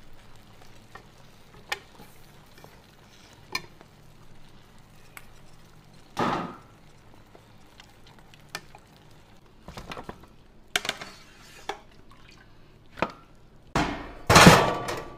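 A metal ladle stirring and scooping through braised pig's trotters in an aluminium pot, with scattered light clinks and knocks against the pot. A brief louder scrape comes about six seconds in, and a louder clatter near the end.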